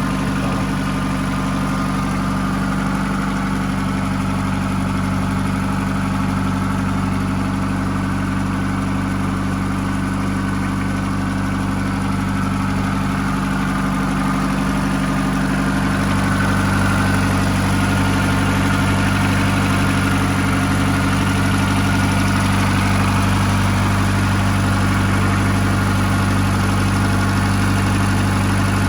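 Ford Escort RS Cosworth's turbocharged 2.0-litre Cosworth YB four-cylinder idling steadily, getting slightly louder about halfway through.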